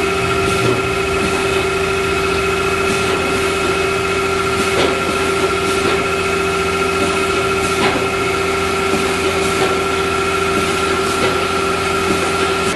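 Friction screw press running: its motor-driven flywheel and friction-disc drive give a steady machine hum with several clear, unchanging tones, and a few faint clicks now and then.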